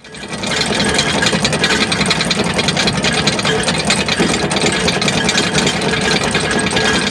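Anchor chain paying out over the windlass gypsy and down the chain pipe under the brake: a loud, continuous metallic rattle of chain links that builds up within about half a second and then runs steadily.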